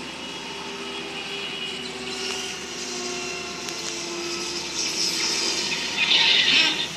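Soundtrack sound effects: a steady jet-like rushing noise under sustained held tones, swelling into a loud hissing rush about five to six and a half seconds in.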